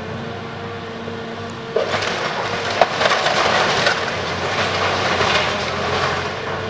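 Excavator breaking apart a small wooden building: wood cracking and splintering in a crunching, crackling stretch that starts about two seconds in, with one sharp crack soon after. The excavator's engine runs steadily underneath.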